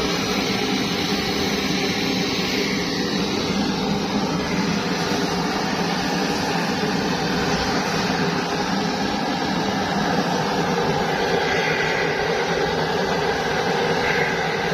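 Kerosene pressure (primus) stove burning with a steady, even hiss from its pressurised flame.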